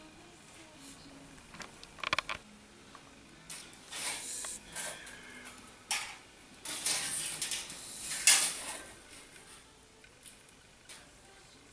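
Felt-tip marker drawn along a steel rule on a sheet-metal blank: several short scratchy rubbing strokes, the longest a little past the middle, with light handling of the rule and sheet.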